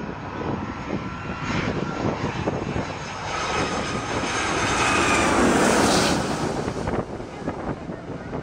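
Twin-engine jet airliner on final approach passing low overhead: the engine noise builds to its loudest about five to six seconds in, with a whine that falls in pitch as it goes by.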